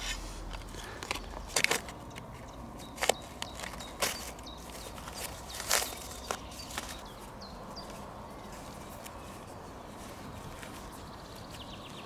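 Hands handling the pages of a book: paper rustling with scattered sharp clicks and snaps, several in the first six seconds or so, then quieter handling as a firecracker is pressed into a slot cut through the pages.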